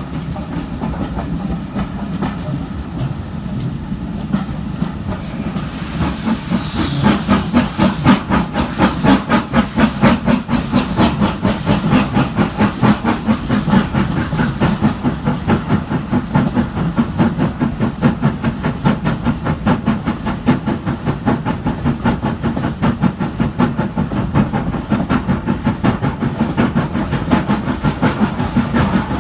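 Stanier Black 5 two-cylinder 4-6-0 steam locomotive hauling a train. A burst of steam hiss comes about six seconds in, then steady exhaust beats that grow louder.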